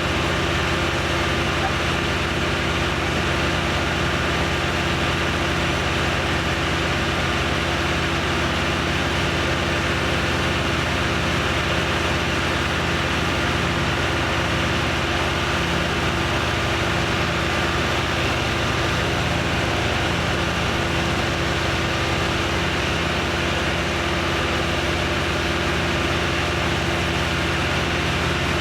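An engine idling steadily, holding one speed throughout with no revving.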